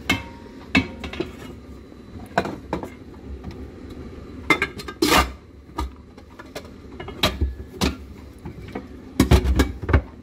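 Metal saucepans and lids clanking and knocking against each other and the shelf as they are moved and stacked in a cupboard. The knocks come irregularly, with a quick run of louder ones near the end.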